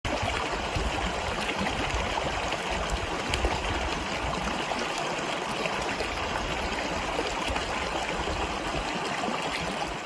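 Shallow mountain stream running over rocks and stones, a steady rush of water that fades out at the very end.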